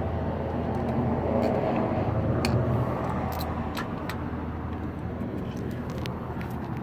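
Steady low motor-vehicle rumble that swells a second or two in and then eases off, with a few scattered sharp clicks of hand tools on metal.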